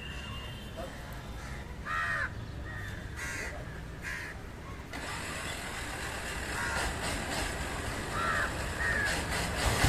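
Crows cawing: a handful of short caws scattered through, over a steady low background rumble.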